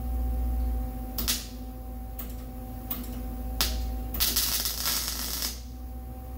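MIG welder arc spitting and sputtering on sheet steel: four short zaps about a second apart, then a longer burst of about a second and a half. The welder is running without its shielding gas turned on, which causes the sputter.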